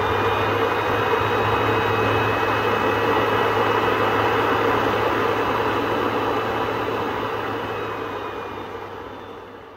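Forge fire burning under a blower: a steady rushing noise with a low hum, fading out over the last two seconds.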